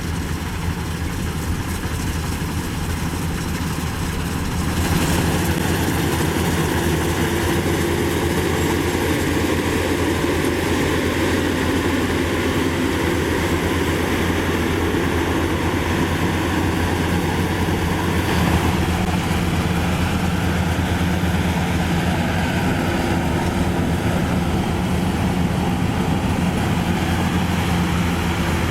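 Maxxi Bimo 102 rice combine harvester running steadily at work, its engine a constant low drone; the sound gets louder about five seconds in and stays level after that.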